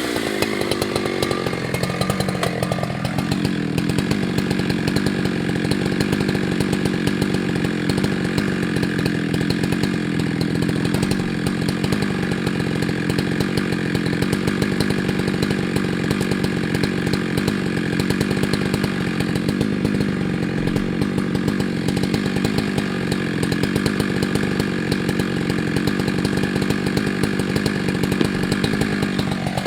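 Husqvarna 365 two-stroke chainsaw running at high revs while cutting through wood. Its pitch drops slightly in the first three seconds, then holds steady.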